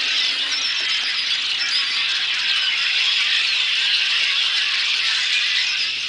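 A large flock of red-winged blackbirds calling all at once, a dense, steady chatter of many overlapping short, high calls.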